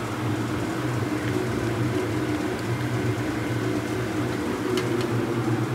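Steady mechanical hum of a fan or appliance motor, with a couple of light clicks about five seconds in.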